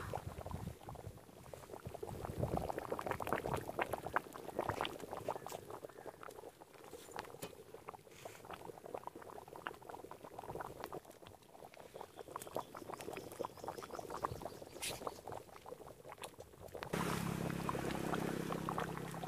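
Thick goat-head gravy boiling hard in a large iron kadai over a wood fire: a dense run of bubbles popping and plopping. About seventeen seconds in, a steady low hum of unknown source sets in and carries on.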